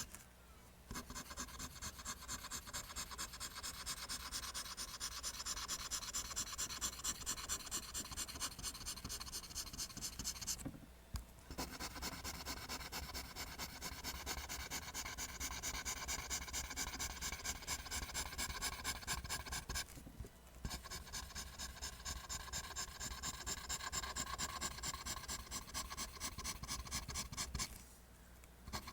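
Pencil drawing lines on paper: quick, even, repeated scratchy strokes, stopping briefly three times.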